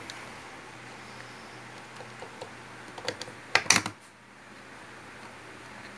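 Small clicks and taps of multimeter test probes touched against a speaker cabinet's terminals, a few scattered and then a louder quick cluster about three and a half seconds in. The woofer gives none of the crackle it should make under an ohmmeter test, the sign of a break in its wiring.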